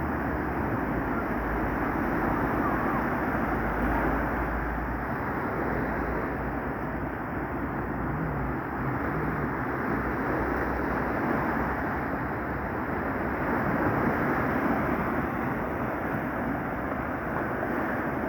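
Rough sea: surf rushing and breaking steadily, swelling and easing, with wind rumbling on the microphone.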